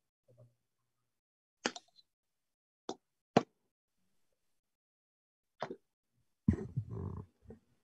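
A few sharp clicks, four spread out over several seconds, then a short muffled bump with a brief rustle near the end, picked up over an open video-conference audio line between speakers.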